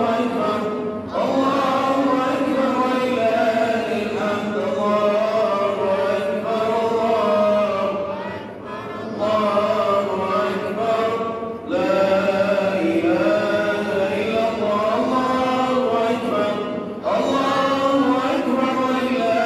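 Male chanting of a melodic religious song, with long, wavering held notes and brief pauses for breath a few times.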